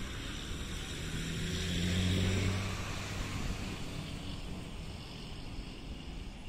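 A passing engine, swelling to its loudest about two seconds in and then fading, over steady background noise.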